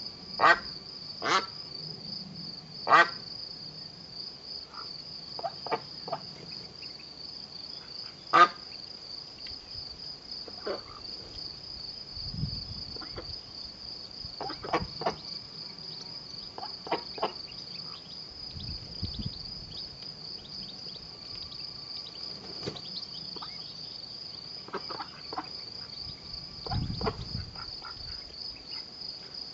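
Crickets chirping steadily in a high, finely pulsing trill throughout. A few short, sharp peeps stand out above it, the loudest near the start and about eight seconds in, fitting the ducklings peeping.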